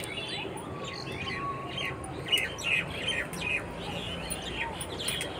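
Small birds chirping, short high chirps repeated two or three times a second.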